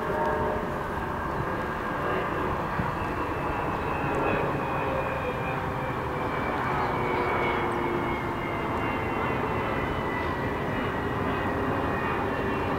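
A steady engine drone whose pitch sinks slowly, heard over a constant rushing noise.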